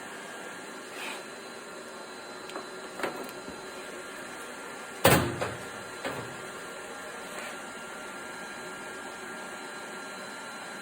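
Inverter stick welder running under load as a constant-current supply: a steady fan hum with a thin high whine. A few light clicks, and one sharp knock about five seconds in.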